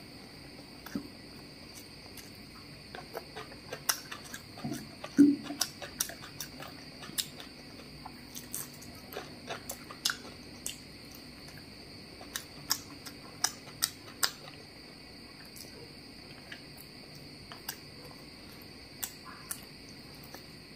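Close-miked hand-eating of mutton biryani: scattered sharp clicks and smacks from fingers working the rice on the plate and from the mouth as she chews. A steady high-pitched whine sits underneath.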